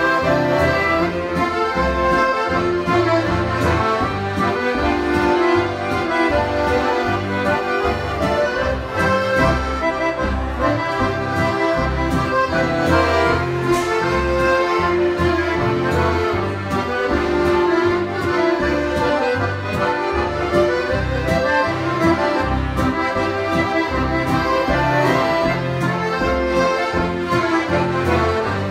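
Live folk dance band playing a steady dance tune: several button accordions, two-row and five-row, carry the melody over acoustic guitar and an upright double bass keeping the beat.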